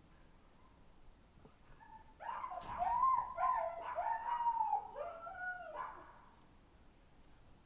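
A dog whining and yelping: a run of short, pitched cries that bend up and down, starting about two seconds in and stopping about two seconds before the end.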